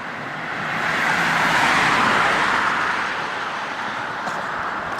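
A car passing on the highway, its tyre and engine noise swelling to its loudest about two seconds in, then slowly fading.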